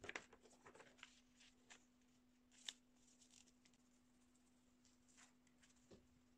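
Faint rustling of a paper sheet being handled and laid on a cotton dress, with a sharp tick about two and a half seconds in, then a few soft scratches of a pen tracing a drawing through the paper. A steady low hum runs underneath.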